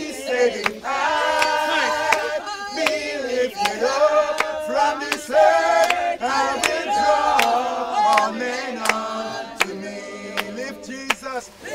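A group of men and women singing a gospel song together, with short sharp taps scattered through the singing.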